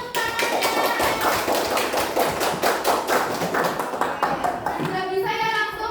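A fast run of sharp hand claps from a group of children, several a second, with children's voices near the start and the end.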